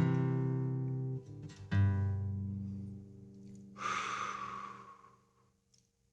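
Guitar chords strummed twice, about two seconds apart, each left to ring and fade. About four seconds in there is a short noisy rustle lasting a second or so, and then the ringing dies away.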